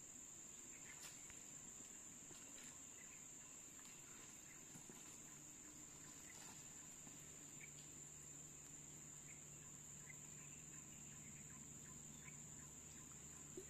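Near silence with a faint, steady high-pitched insect drone. A faint low hum joins about four seconds in.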